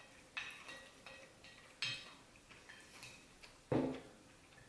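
Plastic spoon scraping and tapping against a dish of mac and cheese while eating: a few short clicks and scrapes, the loudest a duller knock near the end.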